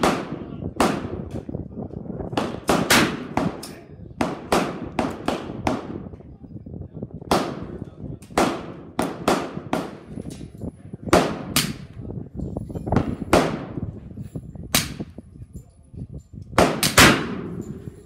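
Gunshots at a shooting range: about two dozen sharp reports, some in quick succession, among them the shots of a .45 Colt Uberti 1873 Cattleman single-action revolver.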